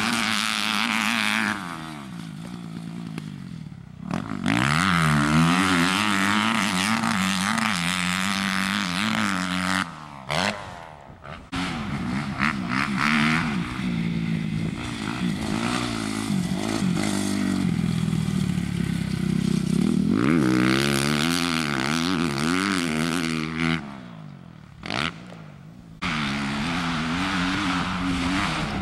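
Motocross dirt bike's single-cylinder engine revving up and down as it is ridden hard over jumps and turns, its pitch rising and falling with the throttle. It drops away briefly three times before coming back on the gas.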